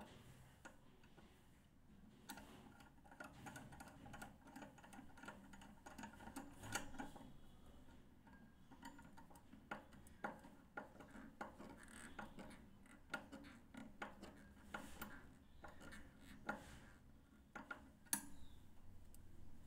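Faint, irregular clicks and scrapes of a screwdriver turning a terminal screw on a fuse cut-out base as a wire is fastened in.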